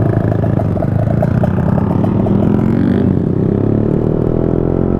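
Motorcycle engine running at low speed in traffic, then accelerating from about three seconds in, its pitch rising steadily.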